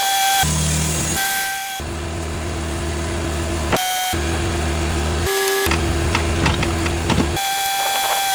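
Cooks AC36 band sawmill running, its engine and blade giving a steady tonal drone, which changes abruptly several times as if cut between shots, with a scatter of ticks and clicks in the second half.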